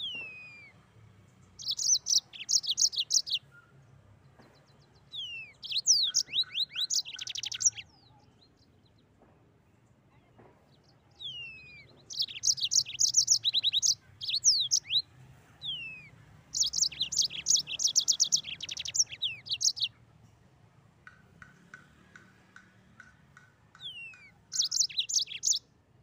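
Yellow-fronted canary (Mozambique finch) singing in rolling phrases: fast, high trills mixed with sharply falling whistled notes, each phrase one to three seconds long, with short pauses between them. A softer, lower trill series comes shortly before the last loud phrase near the end.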